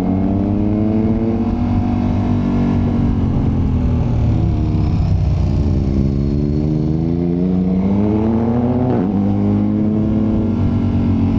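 KTM 1290 Super Adventure's V-twin engine running under load, revs climbing, easing off about two seconds in, then climbing again. About nine seconds in the pitch drops abruptly, as at a gear change, and starts rising once more.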